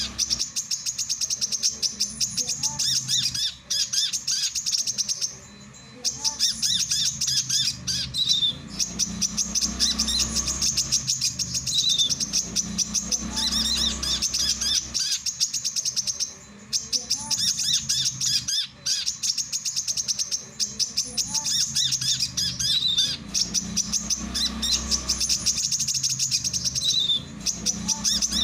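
Male brown-throated sunbird (kolibri kelapa) singing a fast, high chattering twitter in long runs broken by brief pauses. The same song pattern comes round about every eleven seconds, with a faint low hum underneath.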